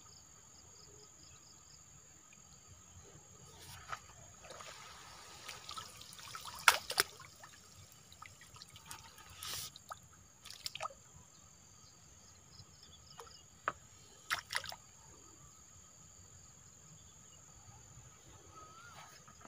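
Faint trickling and dripping of water around a bamboo lift net in a stream, with a handful of short splashes and knocks scattered through the middle.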